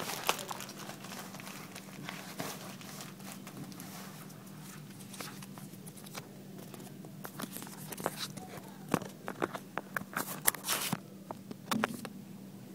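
Scattered clicks and rustles of a plastic hotel key card being handled at a room door's card lock, over a steady low hum. The clicks come thickest about two-thirds of the way in.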